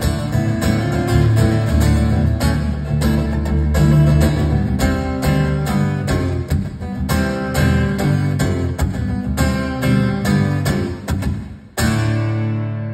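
Acoustic guitar strummed in a steady rhythm through an instrumental passage, with no singing. Near the end it stops briefly, then one last chord is struck and left to ring and fade.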